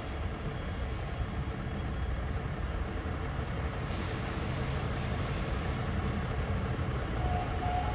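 Front-loader garbage truck's diesel engine idling: a low, steady rumble.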